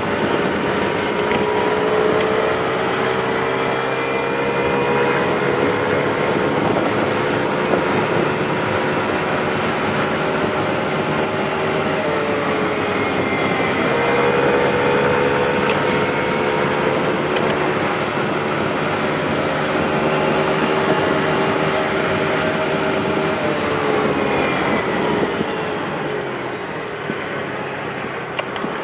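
Suzuki Let's 4 Basket scooter's small four-stroke engine running on the road, its pitch rising and falling with the throttle, with a steady high-pitched whine over it that drops away near the end.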